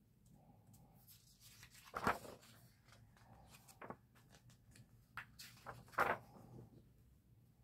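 Paper pages of a large art book being turned by hand: two crisp page-turn rustles about two seconds in and again near six seconds, with softer brushes of the hand sliding over the paper in between.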